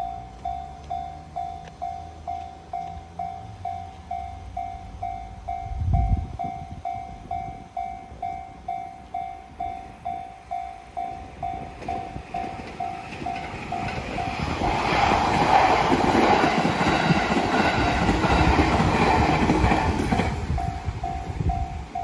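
Japanese railroad crossing warning bell ringing at about two and a half strokes a second while a train passes through. The train's rumble and wheel noise build from about twelve seconds in, drown out the bell for several seconds, then fade as the bell comes through again near the end. There is a single low thump about six seconds in.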